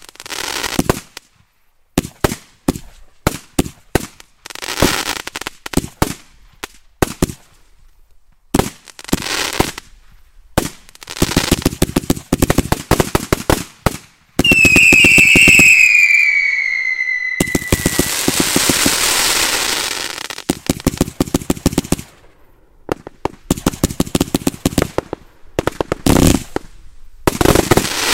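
Kimbolton 'Accolade' 150-shot, 20 mm firework cake firing: rapid strings of tube launches and bursting shells. About halfway through comes a whistle that falls in pitch, followed by a few seconds of dense crackling, then more quick runs of bangs.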